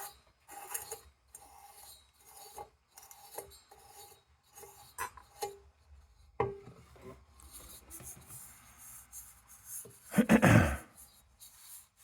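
Parts of an old battery lantern being worked by hand: a run of short scraping, rubbing strokes with a faint squeak in each, then a louder handling noise about ten seconds in.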